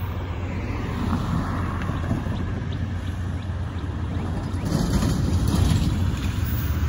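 Wind rumbling on the microphone over road traffic, swelling about five seconds in as a delivery box truck drives past.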